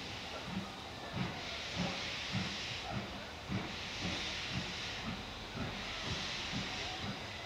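BR Standard Class 4MT 2-6-4 tank steam locomotive pulling away slowly with its train: exhaust chuffs from the chimney about two a second over a steady hiss of steam from the open cylinder drain cocks.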